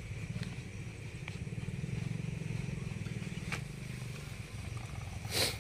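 Steady low engine rumble with a fast pulse, with a sharp click about three and a half seconds in and a brief rustling burst just before the end.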